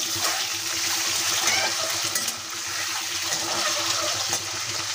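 Whole peeled boiled eggs sizzling in hot oil in a kadai, being lightly fried: a steady crackling hiss of frying oil.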